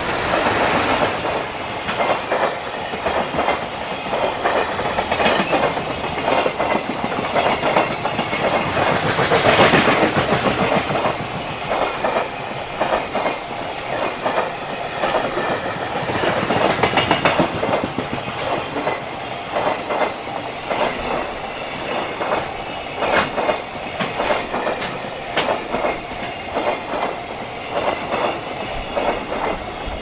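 JR Freight EF210 electric locomotive and its long train of container wagons passing close by at speed, wheels clattering over the rail joints in rapid repeated clicks. The level-crossing alarm bell is ringing.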